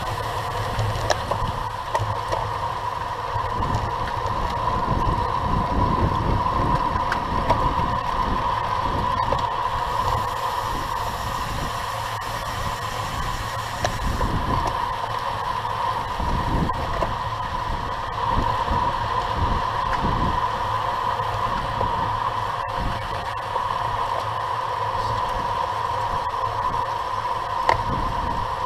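Wind buffeting the microphone of a bike-mounted camera and tyre and road rumble from a racing bicycle riding in a fast pack at close to 30 mph, with a steady hum underneath and a few light clicks.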